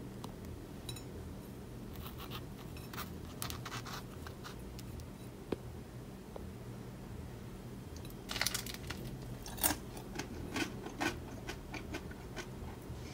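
Crisp toasted bread crackling and scraping as a fig and cheese toast is picked up and handled by hand, in two spells of sharp crackles, the denser one from about eight seconds in, over a low steady hum.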